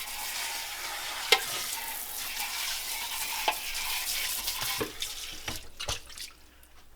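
Kitchen sink sprayer hose spraying water over a juicer part, a steady hiss with a few light knocks of the part against the sink; the spray stops about five and a half seconds in.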